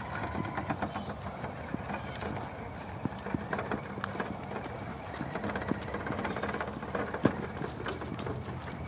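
Brushless electric motor of a CEN F450 RC truck on a 2S battery whining as the truck drives over sand, with the tyres crunching and scattered small clicks. A faint whine rises in pitch around the start.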